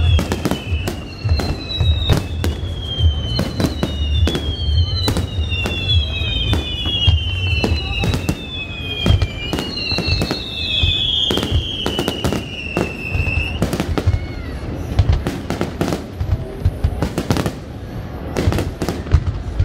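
Aerial fireworks display: a rapid, irregular barrage of bangs from bursting shells. Over the first two-thirds runs a string of overlapping whistles, each falling in pitch, a new one starting about every second.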